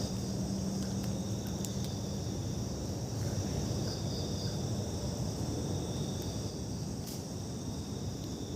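Steady chorus of insects trilling in woodland, a constant high-pitched shimmer over a low rumbling background noise, with a few faint clicks.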